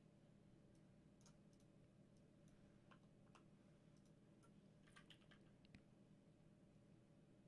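Near silence with faint, scattered computer keyboard and mouse clicks, including a short run of keystrokes about five seconds in.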